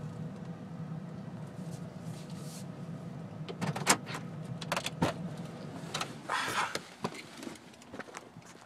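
Car engine running at low speed while the car is parked, with several sharp knocks and clicks from inside the cabin. The engine hum drops away near the end.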